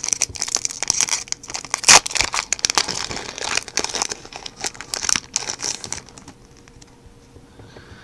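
Yu-Gi-Oh! booster pack wrapper crinkling as it is handled and the cards are pulled out: a dense, rapid crackle that stops about six seconds in.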